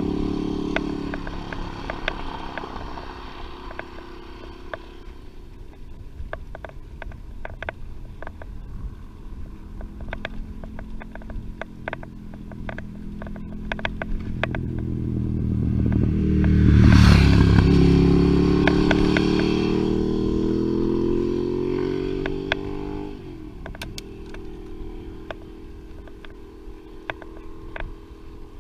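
A motor vehicle's engine passes close by, loudest about two-thirds of the way through, its pitch climbing as it pulls away and dropping suddenly at a gear change a few seconds later. Another vehicle's engine fades out at the start, and light clicks and rattles from the bicycle run throughout.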